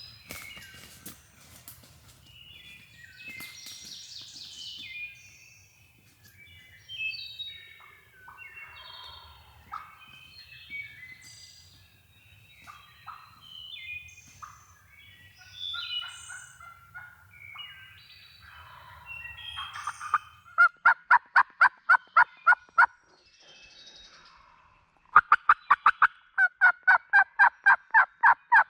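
Small birds chirping and singing. Then, from about two-thirds of the way in, two long, loud runs of turkey yelps, evenly spaced at about five notes a second, each note breaking from a higher to a lower pitch.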